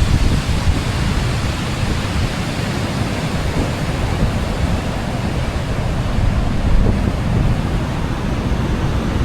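Ocean surf washing steadily on the beach, with wind buffeting the microphone as a low rumble.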